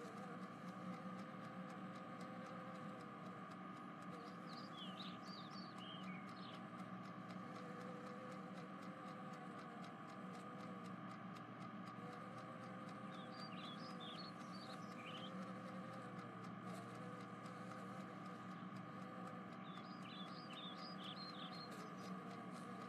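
Faint steady background hum with three short clusters of high, quick chirps spread through it.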